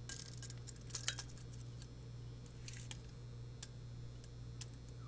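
Faint, scattered light clicks and clinks of a steel tape measure being handled against a steel hinge-bending tool, over a steady low hum.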